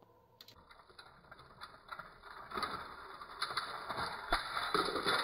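Battery-powered Plarail toy train's motor whirring with clicking gears as it runs along plastic track, getting louder. Just after four seconds a knock as the engine and its wagon tip off the end of the track.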